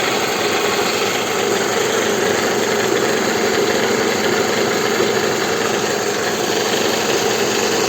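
Toyota Estima engine idling, heard from underneath by the oil pan, with its balance shafts freshly restored; a steady even running sound with no distinct knock standing out.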